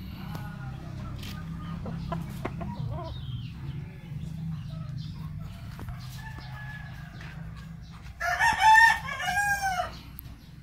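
Rooster crowing once, loudly, about eight seconds in, a call lasting under two seconds, after softer clucking calls at the start. A steady low hum runs underneath.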